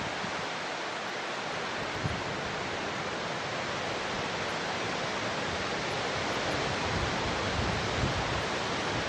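Steady wind hiss outdoors, with low gusts buffeting the microphone in the last couple of seconds.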